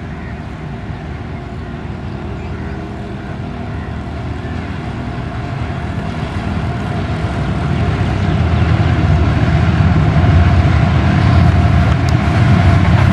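Pakistan Railways GEU40 diesel-electric locomotive hauling a passenger express toward the listener, its engine and wheels a steady rumble that grows evenly louder as it comes closer.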